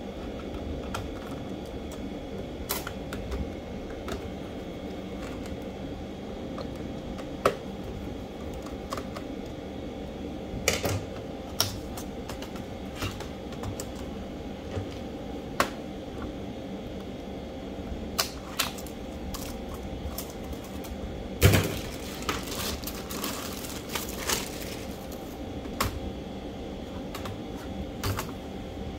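Scattered plastic clicks and taps as the keyboard of a Toshiba Satellite C650 laptop is pried from its latches and lifted out of the case. A louder clatter comes about 21 seconds in, followed by a few seconds of rattling as the loose keyboard is handled.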